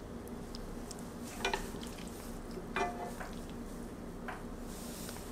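Wooden spoon and chopsticks setting stir-fried sweet potato stems onto a ceramic plate: soft handling sounds with three light taps. The second tap, about three seconds in, gives a brief clink from the plate. A steady low hum runs underneath.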